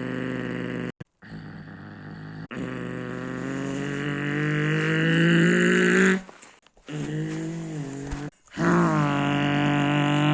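Mercedes-AMG C43 engine and exhaust revving, its pitch climbing slowly and then cutting off suddenly, then dipping and rising again, in several short stretches broken by abrupt gaps.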